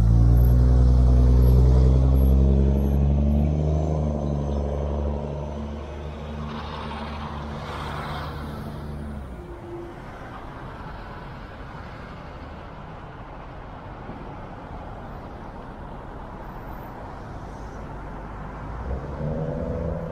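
A large truck's engine running loud and close for the first several seconds, with a brief hiss partway through, then fading as the truck moves off. Steady traffic and road noise follows, and another vehicle swells up near the end.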